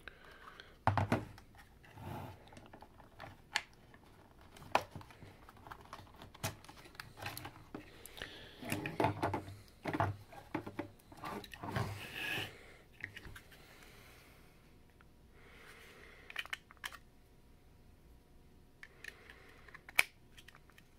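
Hands handling the plastic parts, wire connector and D-cell batteries of a laser-cut battery pack: irregular clicks, taps and knocks. The loudest is a sharp click near the end as the batteries are pressed into their holders.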